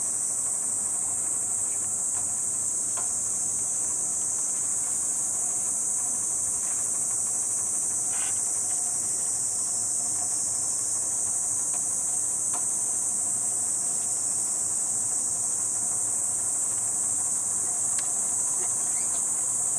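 Steady, high-pitched drone of a cicada chorus, unbroken throughout.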